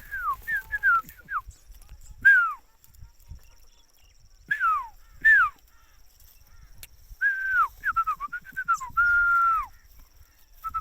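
A bird calling in bouts of clear whistled notes that slide downward, with quick trills of short repeated notes near the end.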